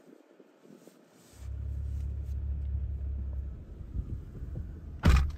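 A low steady rumble that starts about a second and a half in and eases off, then one sharp, loud thump near the end.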